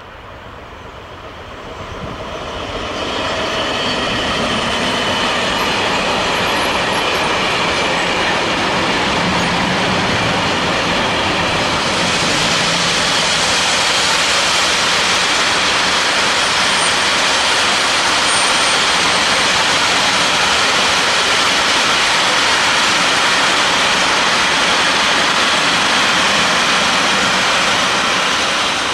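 A freight train of boxcars passing at speed. It grows louder over the first few seconds as it approaches, then the wagons' wheels on the rails make a steady loud rush and rumble, which starts to die away right at the end.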